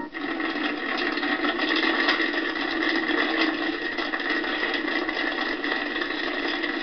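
Popcorn popping in a steady, dense crackle, played through a television's speaker.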